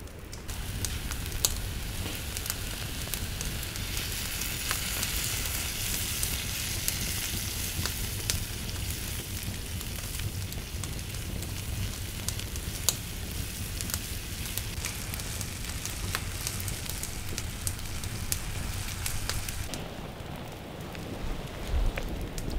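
Cherry tomatoes sizzling in a small camping pot over a wood campfire, with the burning wood crackling and popping, over a low rumble. The sizzle drops away about twenty seconds in.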